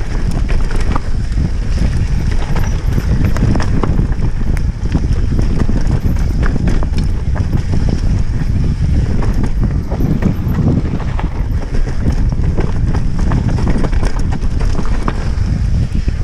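Mountain bike riding fast down a dirt forest trail: a steady low rumble of tyres and wind on the microphone, with the bike clattering and knocking over every bump.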